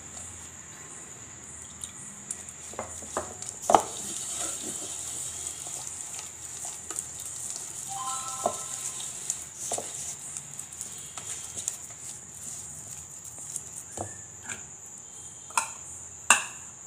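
A hand mixing a thick chilli-and-cornflour masala paste in a stainless steel bowl: soft, irregular squishing and scraping, with a few sharp knocks against the steel, the loudest about four seconds in and just before the end. A steady high cricket trill runs underneath.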